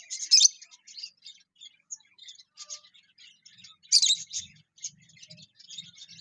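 Lovebirds chirping in a rapid series of short, high-pitched chirps, with louder flurries just after the start and about four seconds in.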